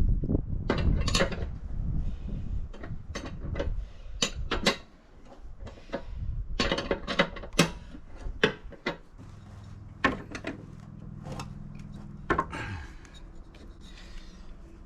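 Clinks, knocks and scraping of metal mower-deck parts and tools being handled during repair: a low rumbling first, then a string of sharp knocks. In the second half a steady low hum runs for about three seconds.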